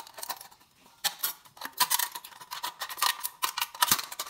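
Scissors cutting through the thin aluminium wall of a soda can: a rapid run of short snips and metallic crinkles, with a brief lull about half a second in.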